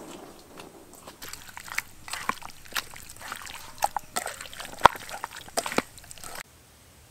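Wet squelching and smacking of raw chicken drumsticks being kneaded by hand in marinade in an enamel bowl, in irregular strokes that stop abruptly near the end.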